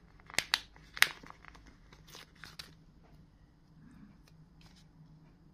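Paper sticker being peeled off its backing sheet by hand, with a few sharp crackles in the first couple of seconds, then only faint handling.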